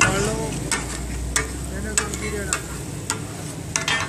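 Two flat metal spatulas clacking and scraping on a hot iron griddle as takka tak meat is chopped and tossed, a sharp clack about every two-thirds of a second with short metallic ringing. The meat sizzles on the griddle beneath.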